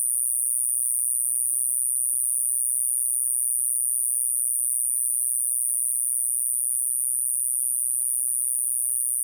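Ogasawara conehead katydid (Euconocephalus nasutus) singing: a steady, continuous high-pitched buzz without a break.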